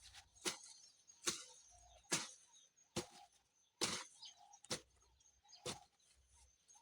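Seven regular strokes of a hand garden tool biting into grass and soil, a little more than one a second, each a short sharp chop.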